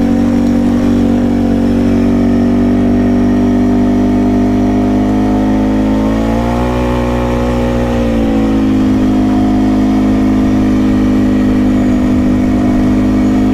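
Can-Am Outlander ATV's V-twin engine running at a steady trail pace, revving up for a couple of seconds about six seconds in, then settling back to its earlier pitch.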